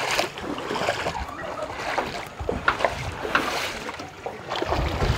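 People wading through shin- to knee-deep floodwater, their legs sloshing and splashing with each step.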